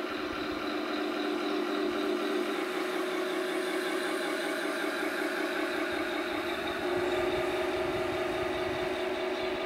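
Tamiya 1/16 RC Tiger I model tank driving, its onboard sound unit playing a steady simulated tank engine over the whine of the electric drive motors. The pitch shifts a couple of times as the tank manoeuvres.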